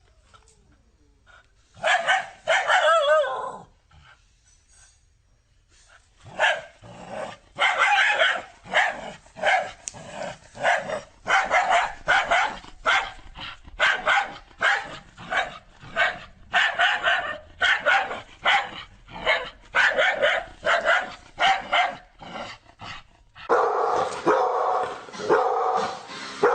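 A dog barking: after a short wavering call and a pause, a long run of quick barks at about two a second, turning into a denser, louder stretch of barking near the end.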